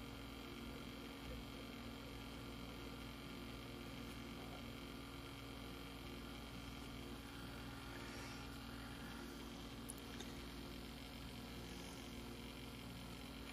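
Faint steady hum, a stack of unchanging low tones, with no distinct clicks or knocks.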